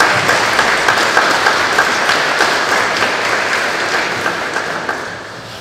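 Audience applauding: a dense patter of many hands clapping that fades away near the end.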